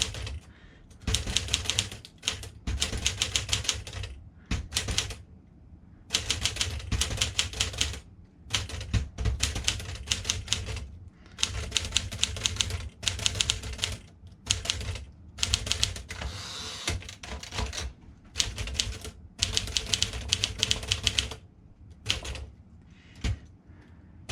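Typing on a 1955 Smith Corona Silent Super manual portable typewriter: rapid keystrokes in runs of a second or two, broken by short pauses.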